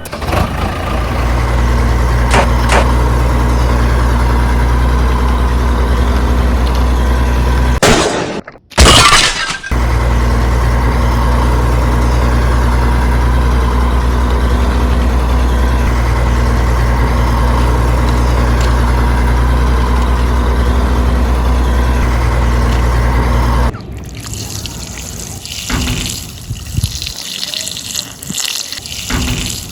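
A small motor hums steadily, broken once about eight seconds in by a brief loud noisy burst, then cuts off about three-quarters of the way through. Uneven splashing and trickling water follows.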